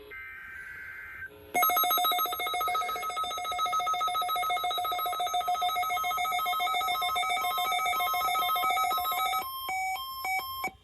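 Weather radio warning alarm test signal. A short burst of high data tones comes first. About a second and a half in, a loud electronic alarm tone starts, pulsing rapidly like a ringing bell, and holds for about eight seconds. It ends in a short run of beeps stepping up and down in pitch.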